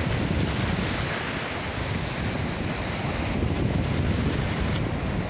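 Rough Gulf surf breaking and washing up the beach in a steady rush, with wind buffeting the microphone.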